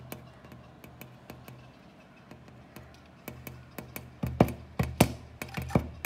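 Woodpecker pecking at window glass: irregular sharp taps, light at first, then a run of louder taps in the second half, over a steady low hum.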